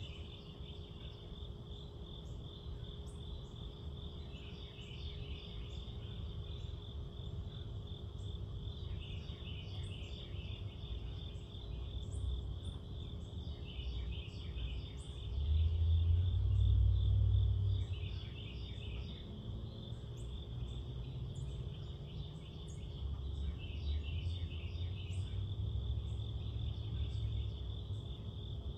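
Crickets and other night insects chirping in a steady, pulsing chorus, swelling and easing every few seconds, over a low rumble that grows louder for about two seconds about halfway through.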